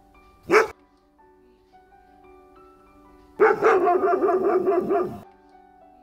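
A goldendoodle barks once. About three seconds later it gives a rapid run of barks lasting nearly two seconds, over soft background music.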